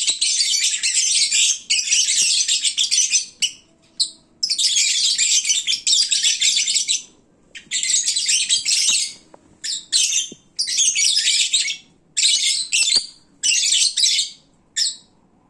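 Lovebirds chattering: dense, shrill twittering and chirping in bouts of a second or two, broken by short pauses.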